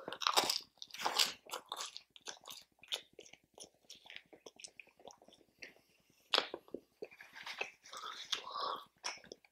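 A person chewing and biting food close to the microphone: a steady stream of small, sharp mouth clicks, with louder bites about a second in and again around six seconds in.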